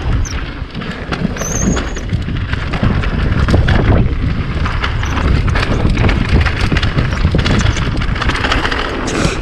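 Mountain bike riding down a dirt trail: heavy wind rumble on the microphone, with the tyres on dirt and the bike rattling over bumps. A brief high squeal sounds about a second and a half in.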